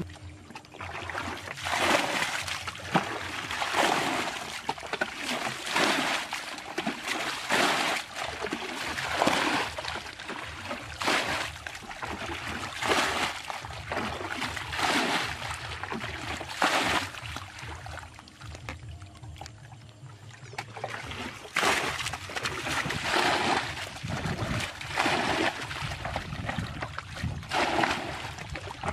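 Muddy ditch water being bailed out with a plastic bucket: a splash and pour about every two seconds, with a short lull past the middle.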